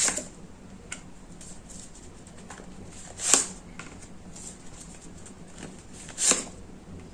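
Tarot cards being drawn and laid out: three short soft swishes of cards, one at the start, one about three seconds in and one about six seconds in, over quiet room tone.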